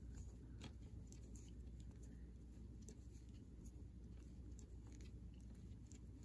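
Near silence: faint, irregular light clicks and taps of circular knitting needles as stitches are knitted, over a low steady hum.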